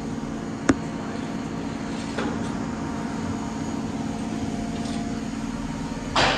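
Steady low mechanical hum of a running motor, with one sharp click under a second in and a loud clatter just before the end.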